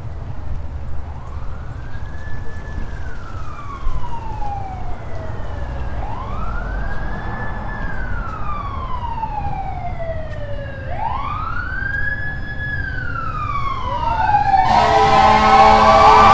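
An emergency vehicle siren wailing in a slow rise and fall, about once every four to five seconds, over the low rumble of street traffic. Near the end it gets louder, with a second siren overlapping it.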